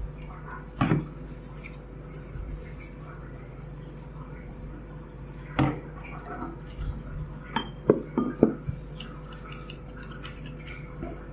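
A toothbrush scrubbing the plastic probe tip of a Bluelab conductivity (EC) pen, with a few sharp knocks and clinks of hard plastic and glass, a quick cluster of them about eight seconds in.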